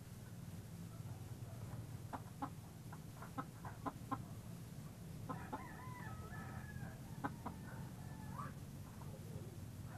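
Chickens clucking in short, scattered notes; about five seconds in, a rooster crows once, a wavering call lasting about three seconds. A steady low hum runs underneath.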